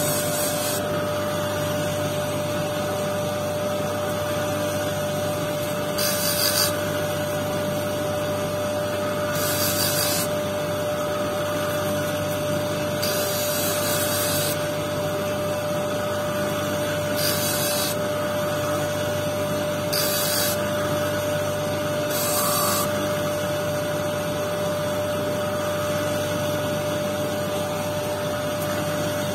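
Motor-driven lapidary grinding disc running with a steady hum and tone, while a quartz stone on a dop stick is pressed to the spinning disc in several short spells that add a high grinding hiss; the spells stop about two-thirds of the way through.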